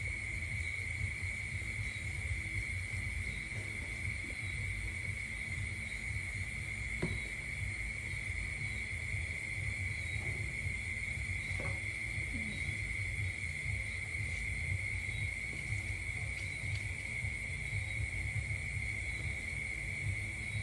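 Steady, high-pitched chorus of insects, a continuous cricket-like trill that does not let up, over a low rumble.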